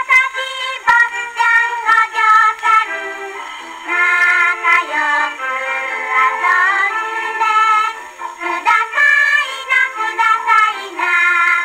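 A 78 rpm shellac record played on a Victrola VV-50 acoustic portable gramophone with a soft-tone steel needle: children's voices singing a song, thin and boxy with no bass, with a few surface clicks.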